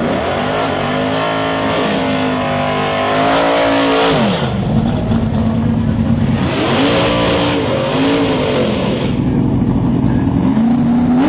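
Drag cars doing burnouts: an engine revs up and is held high for about three seconds with the rear tyres spinning, then drops off about four seconds in. Hissing tyre spin and two shorter revs follow, and an engine climbs again near the end.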